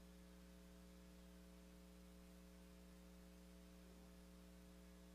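Near silence with a faint steady electrical mains hum.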